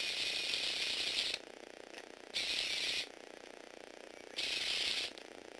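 Lego Technic mini robot's motor and plastic gear train running in three bursts, a longer one of about a second and a half at the start, then two shorter runs of under a second each, with a rattling, ratchet-like clatter.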